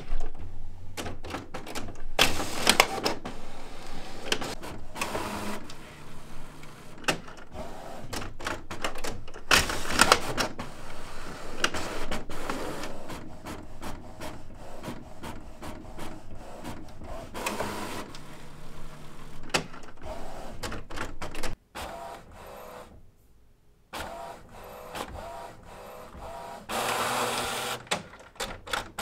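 Canon inkjet printer running a print job, whirring and clicking as it feeds the paper and prints. It goes quiet for about two seconds near the end, then starts up again.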